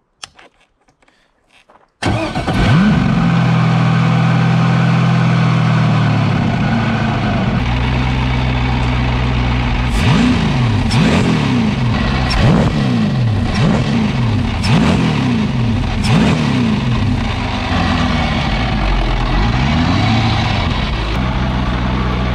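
An LS V8 engine in a jet ski hull, run out of the water on a garden hose for cooling, catches about two seconds in and settles from a higher idle to a lower one. It is blipped several times in the middle, the revs rising and falling, before it goes back to idle.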